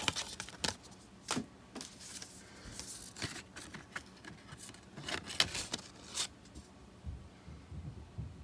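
Compact discs and their cardboard sleeves being handled: scattered clicks, scrapes and rustles as a disc is swapped in and out of its sleeve, with a low rumble near the end.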